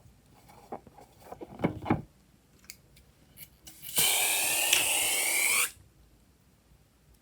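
Slime being worked by hand, with short sticky squelches and clicks, then a loud hiss lasting nearly two seconds that starts and stops sharply.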